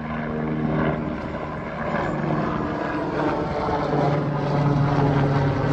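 Helicopter flying overhead, a steady drone of rotor and engine that grows louder in the second half as it passes closer.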